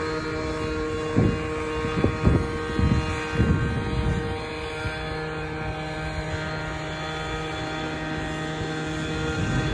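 Riding lawn mower engine running at a steady drone. A few short low thumps sound in the first half.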